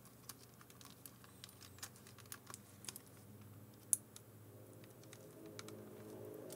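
Faint scattered clicks and taps of a portable cassette player's plastic case and circuit board being handled and pressed back together, with one sharper click about four seconds in.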